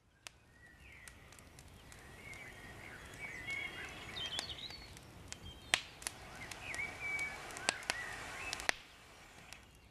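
Woodland birdsong, several small birds chirping, fading in over the first few seconds, with about eight sharp cracks or snaps scattered through it.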